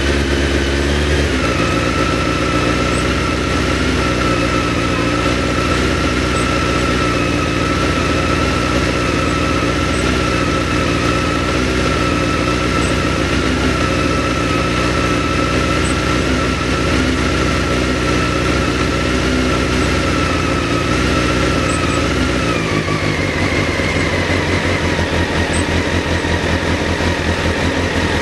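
1991 Honda CBR600F's four-cylinder engine idling steadily, with an even whine over the exhaust note. About a second in the low engine note changes, and about 22 seconds in the idle drops a little lower and stays there.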